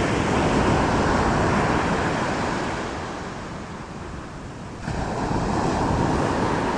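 Ocean surf breaking and rushing up the beach, with wind buffeting the microphone. The rush eases off in the middle and comes back suddenly about five seconds in.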